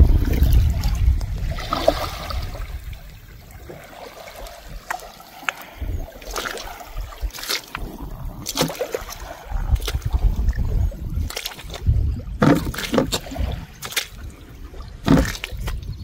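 Footsteps in wet, shell-strewn tidal mud, roughly one step a second and louder near the end, with wind rumbling on the microphone.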